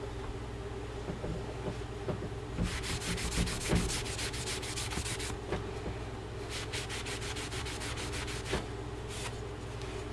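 Rapid back-and-forth rubbing strokes, in two runs of two to three seconds each and a brief one near the end, from scrubbing clean a medium India oil stone.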